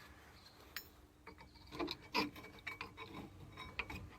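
Faint scraping and light clinking of metal as worn-out front brake pads are worked out of the caliper bracket, in a string of short rubs and clicks after a quiet first second.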